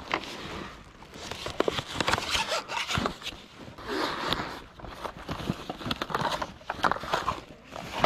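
A soft fabric tool bag holding a cordless framing nailer being opened and rummaged through: rustling of the fabric with many small, irregular clicks and knocks as the tool and its parts are handled.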